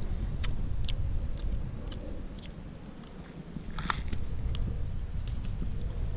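Low wind rumble on the microphone, with scattered light clicks and rustles of a hand reaching through wild blackberry bushes. The sharpest click comes about four seconds in.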